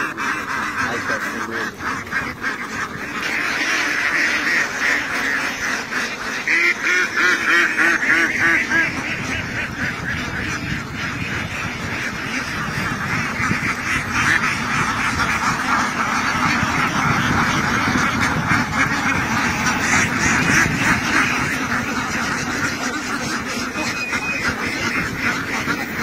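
A large flock of domestic ducks quacking all together, hundreds of calls overlapping into a continuous din that grows a little louder about three seconds in.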